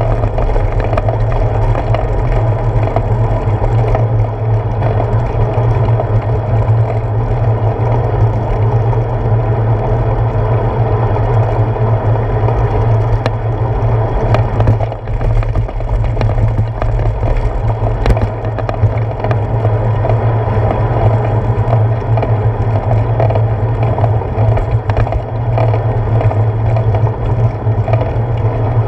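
A bicycle rolling over pavement, heard through a handlebar-mounted GoPro: a steady rumble of tyre and road vibration carried up the bars, with scattered small clicks and rattles.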